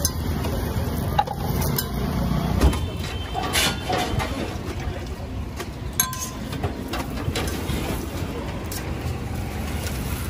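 Parathas frying in ghee on a large flat iron tawa, with a few sharp metal clicks of a ladle and tongs against the griddle, over a steady low rumble of street traffic.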